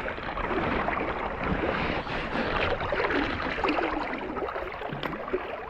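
Fast, knee-deep river riffle rushing and gurgling, with splashes from a hooked rainbow trout at the surface and a single sharp tick near the end.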